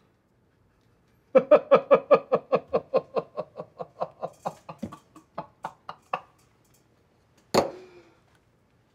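A man laughing hard: a long run of rapid "ha"s that slows and grows fainter over about five seconds, then one short, loud vocal burst near the end.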